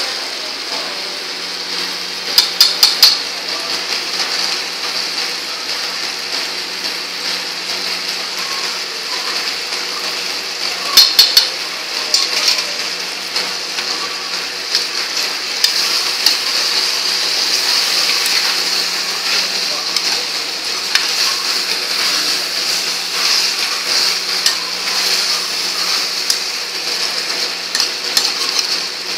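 Onion, capsicum and fried paneer sizzling in a steel pan while a metal spoon stirs them, with quick runs of metal clinks against the pan about two and a half and eleven seconds in.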